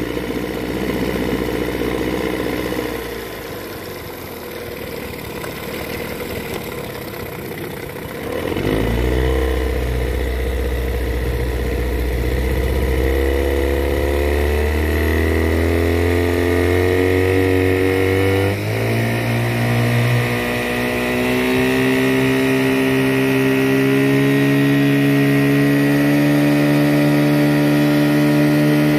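Johnson 15 hp two-stroke outboard motor running on a freshly fitted water pump: slow at first, then throttled up about a third of the way in, its pitch climbing in a few steps and holding steady at a higher speed as the boat gets underway.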